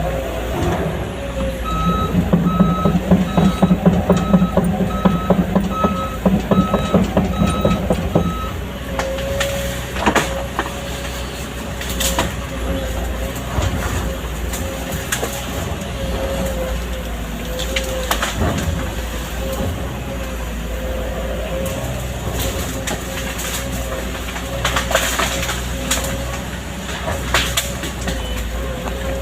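Excavator's diesel engine running with a steady whine. For the first eight seconds or so its travel alarm beeps evenly while the engine works hard with a fast low rattle. After that come scattered knocks and clanks over the running engine.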